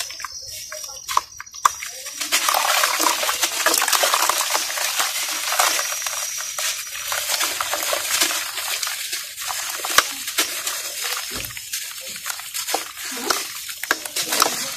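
A water-soaked red dirt block being squeezed and crumbled by hand over a basin of water, wet crumbs and water dripping and splashing into it. It is sparse for about the first two seconds, then turns into a steady wet rush of falling crumbs with many small clicks.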